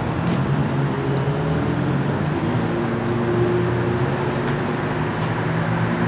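Outdoor street traffic noise with the steady, low hum of a running vehicle engine.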